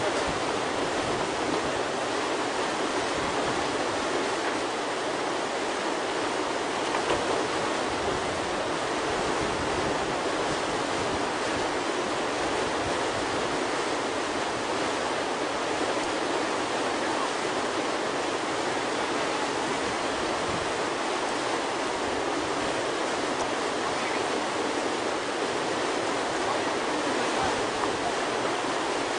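Steady rushing of whitewater from a river rapid's breaking wave-hole.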